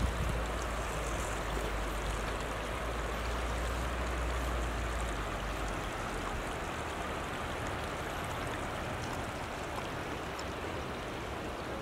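Steady rushing of a mountain river, with a low rumble underneath that drops away about five seconds in.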